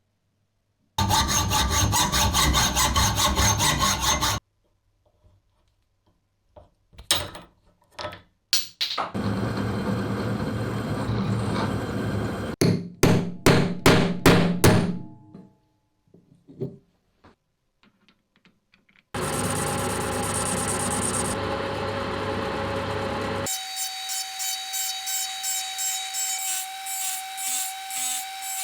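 A run of short, separate workshop sounds of wood being worked: a machine running, a few clicks and knocks, rubbing or rasping strokes, and near the end a machine with a steady whine under rhythmic scraping.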